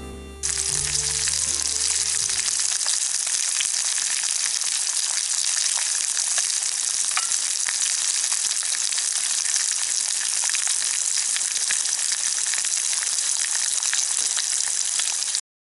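A steady, dense crackling hiss that starts suddenly about half a second in and cuts off abruptly near the end, with fading music beneath it at first.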